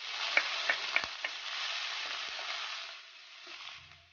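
Chopped ginger and garlic sizzling in hot coconut oil in a clay pot, stirred with a wooden spatula that knocks against the pot four times in the first second and a half. The sizzle dies down near the end.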